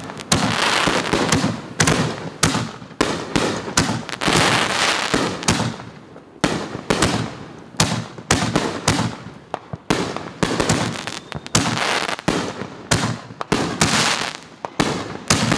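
Consumer fireworks firing in quick succession: a continuous run of sharp bangs, one to two a second, each dying away in a short tail.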